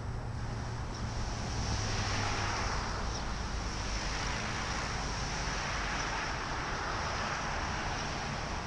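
Wind gusting over the microphone: a rushing noise that swells and fades every few seconds, with a few faint, short bird chirps.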